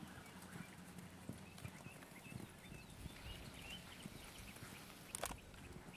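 Soft hoofbeats of a ridden horse, a buckskin gelding, moving over sand arena footing.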